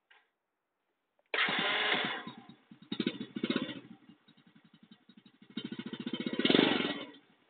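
Euro X125 motorcycle's 125 cc engine through its original stock exhaust, revved with the throttle. A sudden rev about a second in dies away, two short blips follow, then it settles to idle before a longer rev that rises and falls back to idle near the end.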